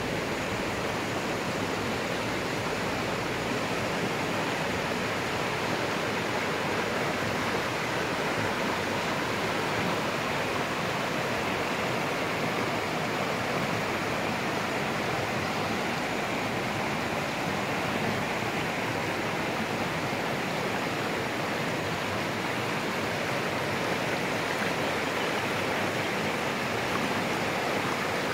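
Shallow river running over rocks and small rapids: a steady rush of water.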